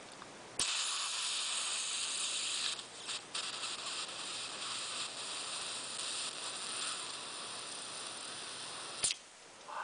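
Butane hissing from a Clipper refill can's nozzle into the fill valve of a Z-Plus lighter insert as the insert is filled. The steady high hiss starts with a click about half a second in, dips briefly around three seconds, and cuts off sharply about nine seconds in.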